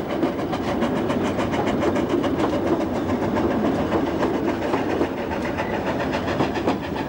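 Narrow-gauge Ffestiniog Railway carriages running steadily along the line, heard from aboard the train: a continuous rumble of wheels on rail with a repeating clatter over the rail joints.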